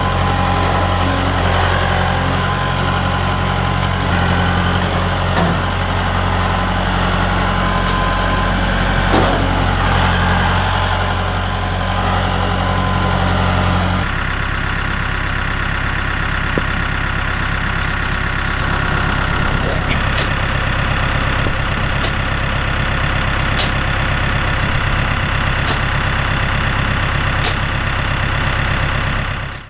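Mahindra compact tractor's diesel engine running steadily as the front-end loader works a dirt pile. About halfway the sound changes to a rougher, less even drone, with sharp ticks about every two seconds.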